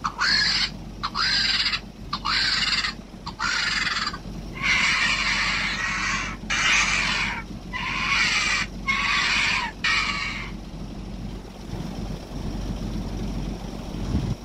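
Vulture calls played back through a device speaker: a string of about nine raspy, hissing screeches with short gaps between them, stopping about ten seconds in.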